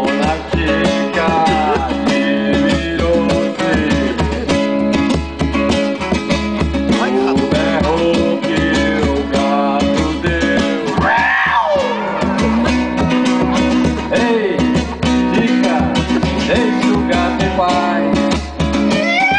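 Music with guitar and a steady, pulsing bass beat, with a man's voice through a microphone sliding up and down in pitch over it, including one long rise and fall about eleven seconds in.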